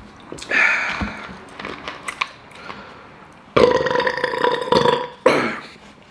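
A person burping out loud. A short burst comes about half a second in, then a long drawn-out burp holding one pitch for over a second a little past halfway, and a shorter one right after it.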